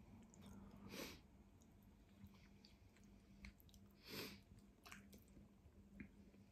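Faint close-up chewing of tteokbokki rice cakes and rice noodles, with small soft clicks and two brief hissy sounds, about a second in and about four seconds in.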